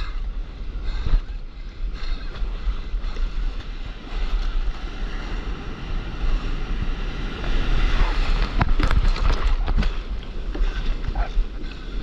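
Wind buffeting the microphone over the rushing wash of surf and whitewater around a stand-up paddleboard, with splashes from paddle strokes. The rush grows louder for about two seconds from around eight seconds in, with a few sharp splashes, as whitewater sweeps up around the board.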